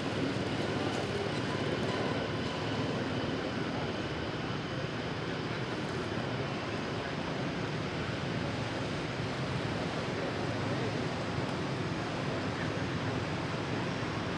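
Steady background noise, an even hiss and low rumble at a constant level with no distinct sounds standing out.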